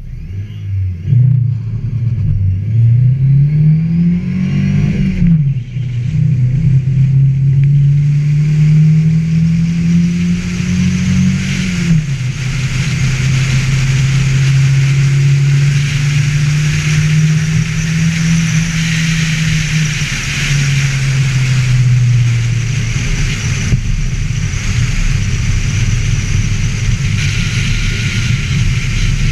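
Ford Festiva's small four-cylinder engine accelerating hard: the pitch climbs, drops at a gear change about 5 seconds in, climbs again to a second shift near 12 seconds, holds at steady revs, then eases lower around 20 seconds in.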